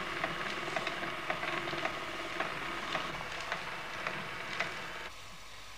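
Steady hiss with scattered faint irregular crackles, the surface noise of an old 1960s film soundtrack between lines of speech; it drops a little near the end.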